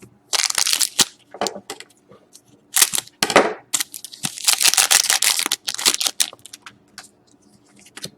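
Hockey trading cards and their foil pack wrapper being handled: crinkling, rustling and sliding in several bursts, with a few sharp clicks between.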